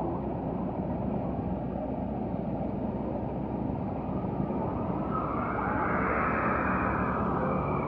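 Train running on the rails: a steady rumble of engine and wheels that swells about five seconds in.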